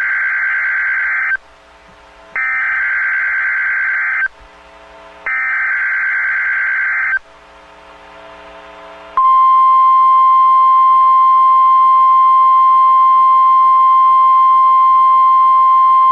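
NOAA Weather Radio emergency alert tones for a test tornado warning: three bursts of SAME digital header data, each about two seconds of buzzy, warbling screech separated by short pauses, then from about nine seconds in the steady single-pitch 1050 Hz weather radio warning alarm tone. These tones are what switch on tone-activated weather alert receivers.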